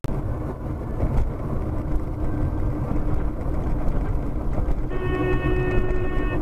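Steady road and engine rumble inside a moving car. About five seconds in, a car horn starts and holds steadily, sounding at an SUV that has cut in close ahead and braked.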